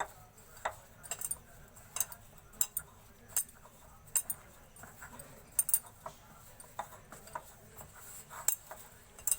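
Dough being kneaded by hand in a bowl: irregular light clinks and taps against the bowl, about one or two a second.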